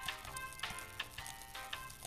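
Background music with a steady beat of short, evenly spaced notes.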